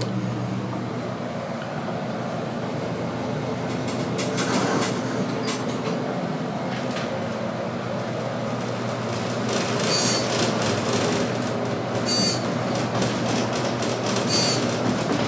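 Baxter and Sons traction elevator car riding upward, heard from inside the cab: a steady hum and running rumble. From about two-thirds of the way in, a short click comes roughly every two seconds.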